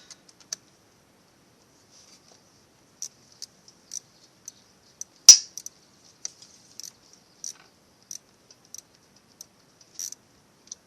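Small metallic clicks and ticks of a 10 mm wrench working a battery terminal bolt, spaced irregularly, with one much louder clack about five seconds in.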